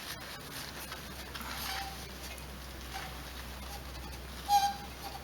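Paper being rubbed against the metal carburetor mounting surface of a small engine, a rustling wipe with a few short squeaks. The loudest squeak comes about four and a half seconds in.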